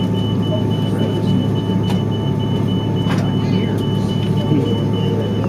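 Steady, loud cabin hum inside an Airbus A330-200 airliner during pushback, with a low drone and a steady mid tone. Over it, a rapid, evenly repeating high beep from the crew rest.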